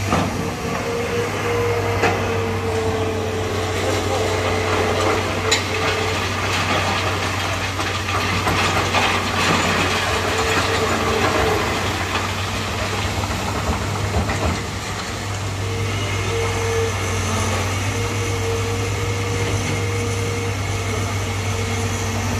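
Hydraulic excavator's diesel engine running steadily with an on-and-off hydraulic whine as it works the boom and bucket, while it loads sand into a dump truck. There are a couple of sharp metallic knocks and a rushing stretch of sand pouring from the bucket into the truck bed partway through.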